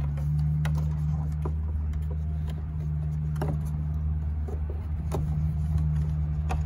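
A steady low mechanical hum runs throughout, with a few light clicks and rattles from wiring and plastic ATV body parts being handled.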